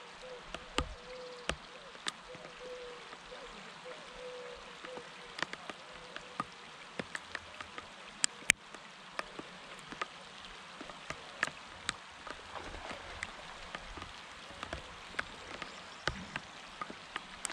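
Light rain: scattered raindrops tapping close by as sharp, irregular ticks over a soft, steady hiss of rain falling on the pond.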